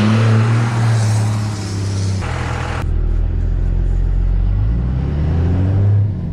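Dodge 2500's 12-valve Cummins diesel pulling the truck along, its pitch climbing steadily as it accelerates through a gear and then dropping near the end as the transmission shifts up.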